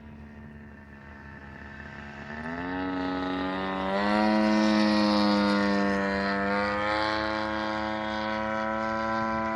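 Radio-controlled model airplane's motor and propeller running. It grows louder and rises in pitch a couple of seconds in, then holds a steady buzz.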